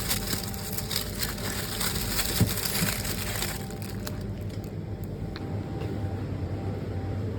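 Crinkling, crackling noise, a dense run of quick clicks, for about three and a half seconds, then stops. A steady low hum carries on underneath.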